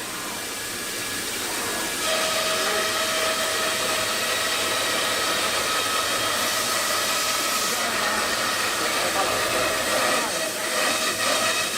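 CNC router spindle running, a steady hiss with a whine through it, getting louder about two seconds in.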